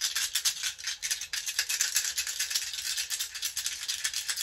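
Stones being knocked and rattled together, making a rapid, dense, irregular clicking.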